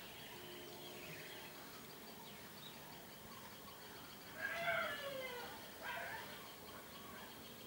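Animal calls in the background: a pitched call of about a second that falls in pitch about halfway through, and a shorter one about a second later, over faint, regular high-pitched chirping.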